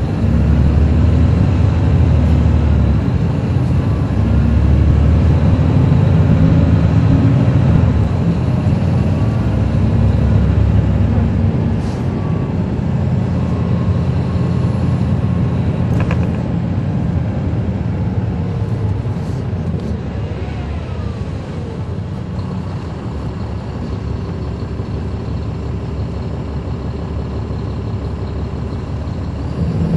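Caterpillar C13 ACERT diesel engine of a NABI 416.15 transit bus, heard from the rear seat inside the bus. It runs loud under load for about the first eleven seconds, then drops to a quieter steady running, with a few faint clicks and rattles.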